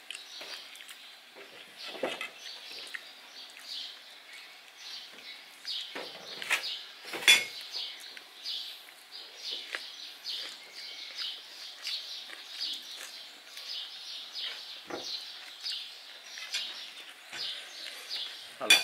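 Small birds chirping steadily in the background, a few high chirps a second, with occasional sharp clinks of plates and cutlery at the table; the loudest clink comes about seven seconds in.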